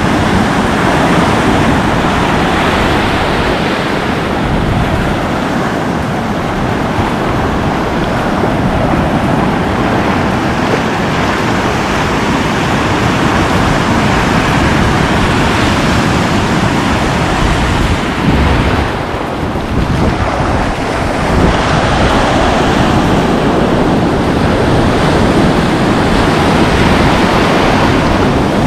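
Sea surf breaking and washing ashore in a steady wash of noise, easing briefly about two-thirds of the way through, with wind buffeting the microphone.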